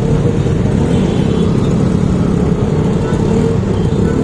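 Motor scooter engines running in slow road traffic: a steady low drone with no clear starts or stops.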